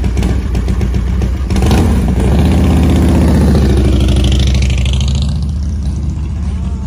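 Big touring motorcycle pulling away: its engine revs up about two seconds in, runs loud, then drops in pitch and fades as it rides off.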